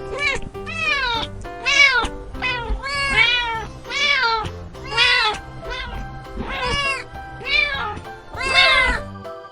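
Kittens meowing over and over, about a dozen short meows that each rise and fall in pitch, with background music playing steadily underneath.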